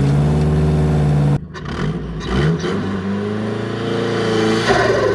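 Turbocharged car engine revved twice, each rev held and then cut off sharply as the throttle snaps shut. Each lift is followed by a fluttering chatter and whoosh from the turbo, the second near the end.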